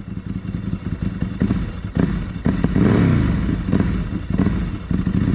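Motorcycle inline-four engine running and being revved in a series of short throttle blips, its pitch rising and falling with each one. The engine is plausibly that of a 1989 Kawasaki ZXR750 H1.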